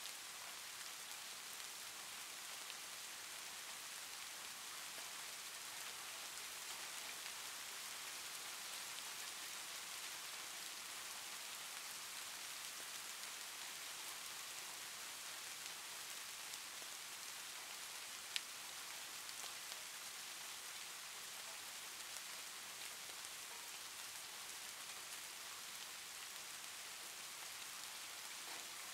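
Steady, even hiss, strongest in the high range, with faint scattered ticks and one sharp click about eighteen seconds in.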